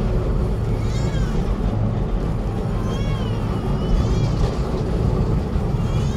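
Sydney tram C 29, an 1898 Hudson Bros-built electric tram, running along its track: a steady low rumble of wheels and running gear. Short high, wavering squeals cut through it about four times.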